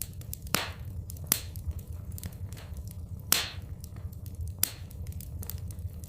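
Fireplace fire crackling, with irregular sharp pops over a steady low rumble.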